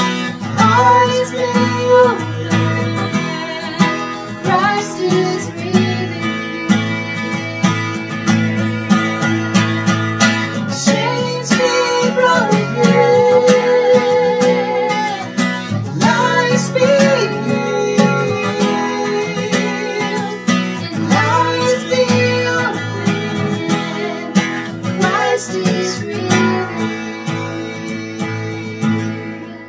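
Church worship music led by acoustic guitar, with a singing voice carrying the melody.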